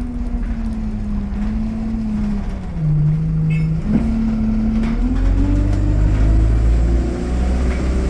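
Diesel engine of an Alexander Dennis Enviro200 single-deck bus under way. Its note sags about two and a half seconds in, jumps back up about four seconds in, then rises steadily as the bus accelerates through the gear. A brief high chirp sounds about three and a half seconds in.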